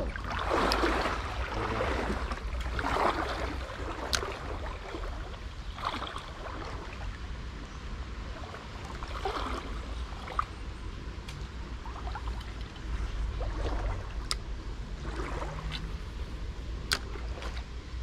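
Shallow river water sloshing around wading legs, swelling in slow swishes every few seconds, with a few sharp clicks.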